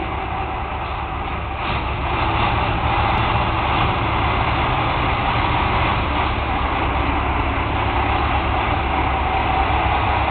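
Western Star Low Max tractor's diesel engine running, a steady low rumble that gets louder about two seconds in and then holds.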